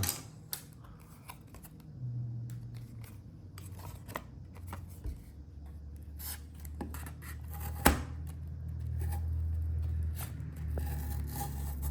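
Stainless folding-knife blade slicing through cardboard in scraping, uneven strokes, with scattered clicks and one sharp click about two-thirds of the way through. The cut is not butter smooth: the blade is only moderately sharp.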